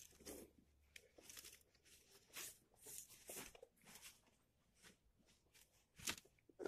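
Faint rustling of clothes and towels being rummaged through by hand in an old suitcase, in scattered soft bursts, with one louder short scuff about six seconds in.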